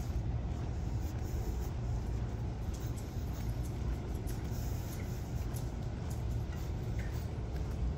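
Steady low rumble of outdoor urban background noise, with no distinct event standing out.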